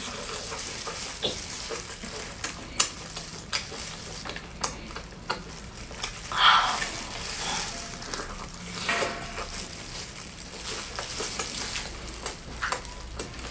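Close-miked eating of a rolled flatbread with a scallion: chewing and mouth smacks, many small wet clicks and crackles over a steady hiss, with a louder burst about six and a half seconds in.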